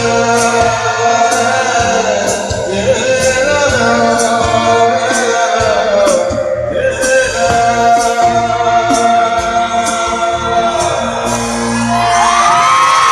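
Live performance of an Assamese song: a male lead singer holding long, bending notes over a band with a steady drum beat.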